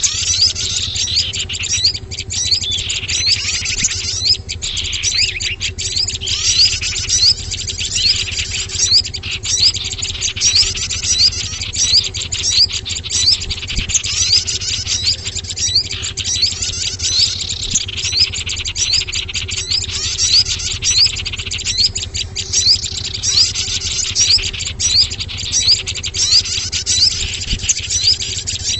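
Bird-lure (pikat) recording for small birds: a dense, unbroken run of quick high chirps and twittering calls from several small songbird species, over a steady low hum.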